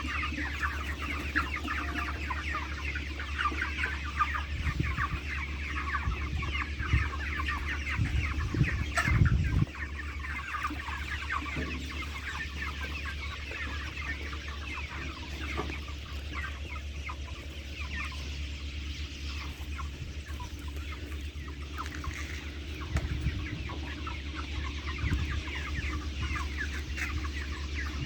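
A flock of desi chickens clucking and calling all at once in a dense, continuous chatter, over a steady low hum. A few low bumps come around eight to nine seconds in.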